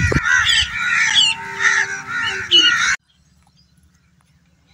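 A flock of birds calling, many short repeated calls overlapping, with a low thump near the start. The calling cuts off abruptly about three seconds in.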